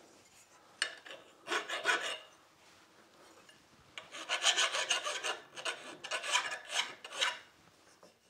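Hand file scraping along the welded aluminum skeg edge of a 1975 Mercury 20 hp outboard's lower unit, knocking off burrs and sharp edges. A few strokes come about a second in, then after a short pause a quick run of strokes from about four seconds to seven.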